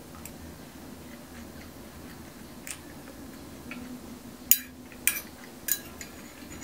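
A spoon clinking against a bowl a few times while scooping kimchi stew, in separate light clinks; the last one rings briefly.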